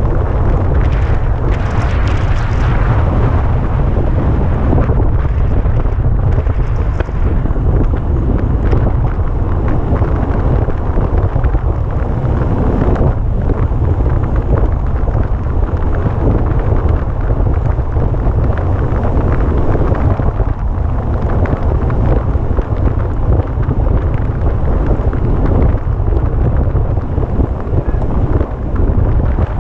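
Heavy wind buffeting the microphone of a camera riding along in a road bike race, a loud steady low rumble with rushing noise above it.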